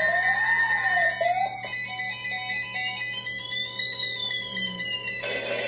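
Electronic alert tones: a warbling tone rising and falling about once a second over a steady high tone, giving way about a second and a half in to a slow tone that glides up and then back down.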